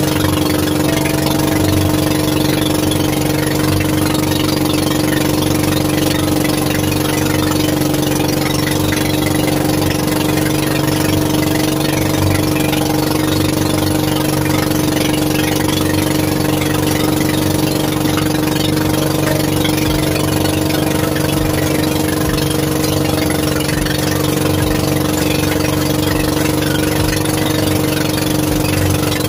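A boat's engine running steadily at an even speed, with no change in pitch or loudness.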